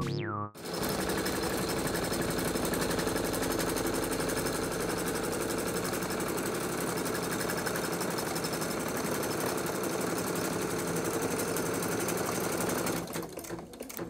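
Electric sewing machine running at speed, its needle stitching through fabric in a rapid, even clatter. It stops near the end.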